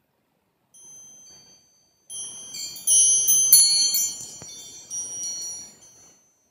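Metal-tube chakra wind chime ringing as its clapper strikes the tubes: a soft ring about a second in, then a cluster of bright strikes from about two seconds in, loudest around three and a half seconds, with the ringing fading out near the end.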